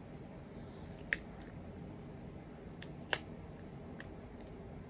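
A few short, sharp clicks and ticks from handling a lipstick and its packaging by hand, the loudest about a second in and about three seconds in.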